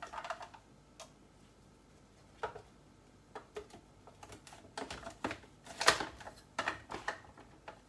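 Scattered plastic clicks and knocks as a food processor's bowl and parts are handled and fitted into place, the loudest knock about six seconds in. The motor is not running.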